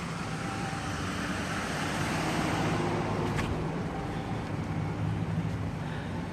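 Road traffic: a vehicle passing by, loudest a couple of seconds in, over a steady traffic rumble.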